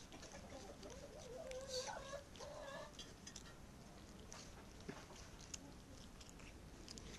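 Faint sharp clicks and crunches of a cat chewing and licking at a chicken bone. In the first few seconds a faint, wavering animal call is heard over it.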